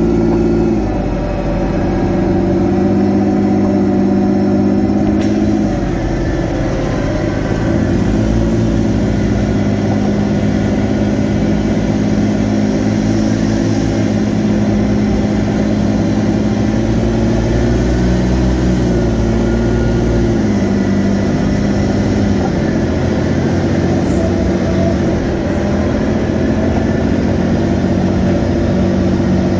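Engine of a Polaris off-road vehicle running under way, heard from on board, its pitch dipping and climbing again several times as the throttle eases and opens.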